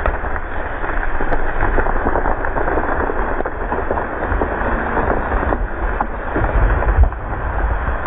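A knobcone pine falling: constant crackling and rustling of breaking branches, then a heavy low thud about two-thirds of the way through as the trunk hits the ground.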